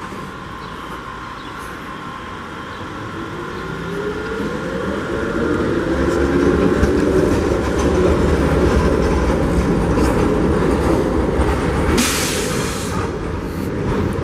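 A tram (streetcar) passing close by: its rumble and rising motor whine build up from about four seconds in and stay loud, with a short burst of hiss near the end.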